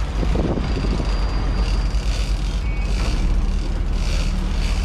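Sportfishing boat's engine running, a steady low drone, with short bursts of hiss above it.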